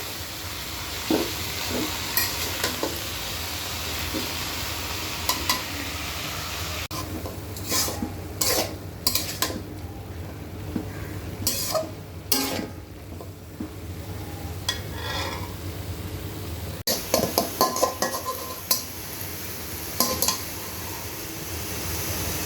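Helencha greens stirred in a frying pan: a sizzle with the scrape and clatter of a spatula against the pan. About 7 seconds in the sizzle drops away and the spatula clicks stand out, and near 17 seconds the sizzle returns.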